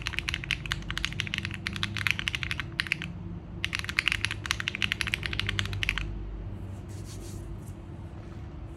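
Fast typing on a QK65 V2 gasket-mount mechanical keyboard with FBB F3 switches, an aluminium plate and JTK keycaps: rapid keystroke clicks in two runs with a short pause about three seconds in, stopping about six seconds in.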